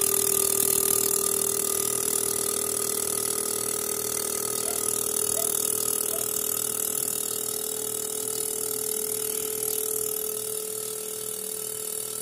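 Fuel injector cleaning and testing machine running, a steady hum with rapid, even clicking as the 4A-FE's injectors are pulsed to flush out a sticking injector.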